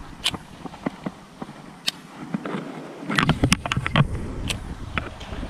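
Scattered clicks and taps of hands working an Abu Garcia Silver Max baitcasting reel. Wind buffets the microphone at the start, drops away, and returns about three seconds in.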